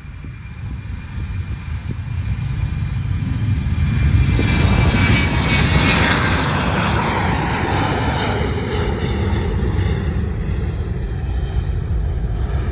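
Airliner passing close by: engine noise builds over the first few seconds, is loudest about four to six seconds in, then its whine falls in pitch as the plane moves away.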